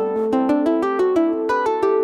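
Background music: a quick, even run of plucked-string notes, like a ukulele or guitar.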